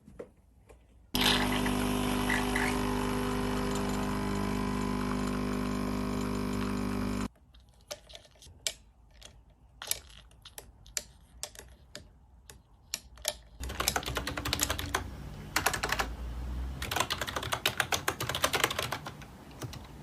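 Mechanical keyboard typing: scattered single keystrokes, then fast continuous typing in the last third. Before that, a loud, steady hum made of several fixed tones runs for about six seconds and cuts in and out abruptly.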